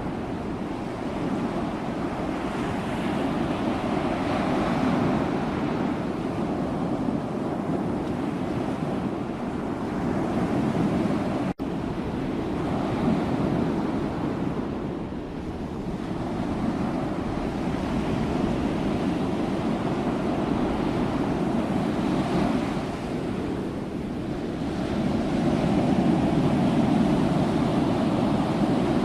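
Ocean waves surging and washing on a shore in a continuous rush that swells and ebbs every few seconds. There is a split-second break in the sound about a third of the way through.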